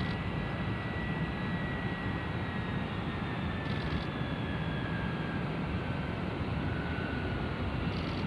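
B-52H Stratofortress bombers' TF33 turbofan jet engines at takeoff power during climb-out: a steady deep jet noise with a faint high whine that slowly falls in pitch.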